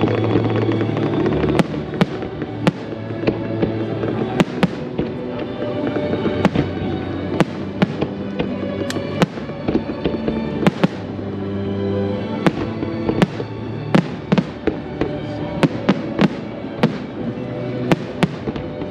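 Fireworks bursting in sharp, irregular bangs and crackles, several a second at times, over steady music playing underneath.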